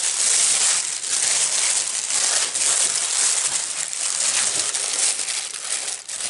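Tissue paper and shredded paper filler rustling and crinkling without a break as hands rummage through a gift box.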